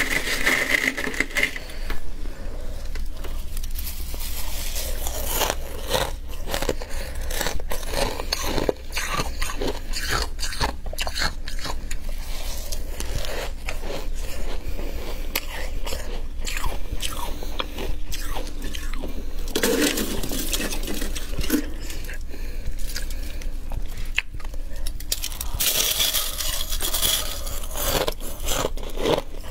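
Close-up biting and chewing of flaky, crispy freezer frost: a dense run of sharp crunches, with louder bursts about twenty seconds in and again near the end, over a faint steady low hum.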